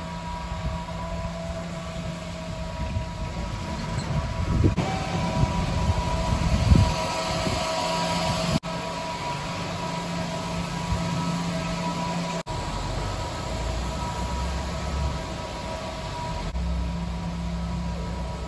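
Railway station ambience: a steady mechanical hum with faint steady tones, such as a train or station equipment gives off, with a few louder low rumbles about four to seven seconds in.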